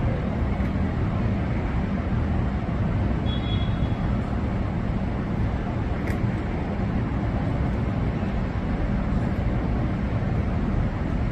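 Steady low rumbling background noise, like that of traffic, with a short high chirp about three seconds in and a brief tick about six seconds in.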